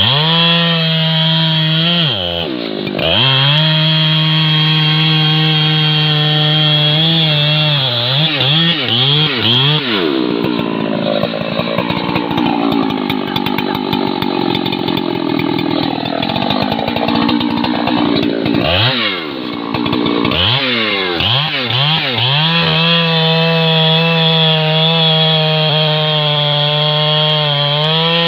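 Husqvarna 3120XP, a large 119 cc two-stroke chainsaw, running at full throttle as its long bar cuts into a thick tree trunk. The engine pitch drops and climbs back several times as the throttle is eased and squeezed again, and sags for several seconds in the middle while the chain works in the cut.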